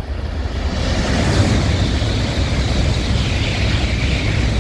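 An N700-series Shinkansen train passes through at high speed on the through track without stopping. It makes a loud, steady rush of air and wheel noise over a deep rumble, which rises sharply just as the nose arrives.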